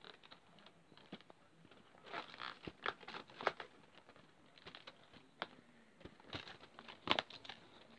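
Cardboard Advent calendar box being handled and turned over: irregular clicks, taps and short rustles of card, with a sharper click about three and a half seconds in and another about seven seconds in.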